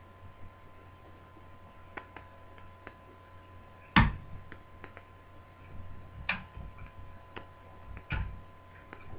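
Scattered light clicks and knocks of a Toshiba Satellite T130 laptop's parts being handled as its motherboard is worked free of the plastic base. The loudest knock comes about four seconds in, with two more near the end, over a steady faint hum.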